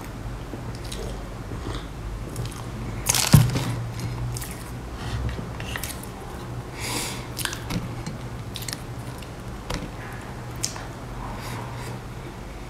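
Close-miked eating sounds: mouth noises of sipping, chewing and biting a soft layered cake, with scattered small clicks throughout. One sharp knock about three seconds in is the loudest sound, and a short soft tearing rustle comes near the middle.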